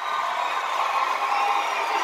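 Large concert crowd cheering and screaming, a dense steady roar that grows slowly louder.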